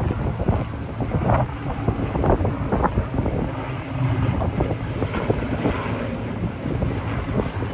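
Wind buffeting the microphone over the steady drone of an Avro Lancaster bomber's four Rolls-Royce Merlin piston engines as it flies low past.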